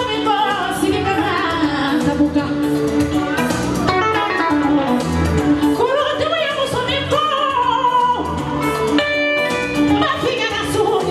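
Music with a singing voice over instrumental accompaniment.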